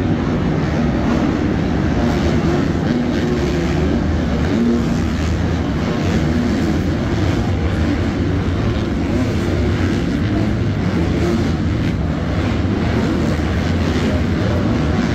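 Several 250cc four-stroke supercross bikes running on the track at once, their engines revving together in a steady, dense din.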